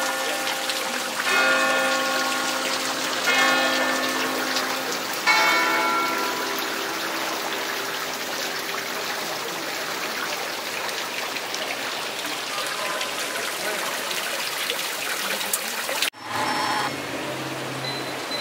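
A bell struck four times, about every two seconds, each strike ringing on and fading, over a steady rushing noise like running water. The rushing stops abruptly about sixteen seconds in.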